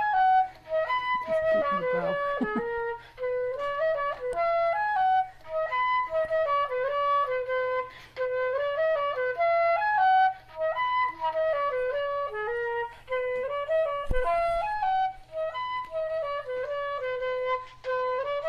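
Music: a solo flute playing a melody, one note at a time.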